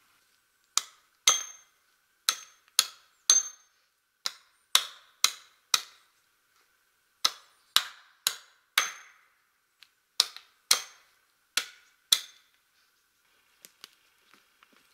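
A wooden stake being driven in with sharp hammering blows, about two a second in short runs of two to four, around eighteen in all, each with a brief ringing tail. A few faint light knocks follow near the end.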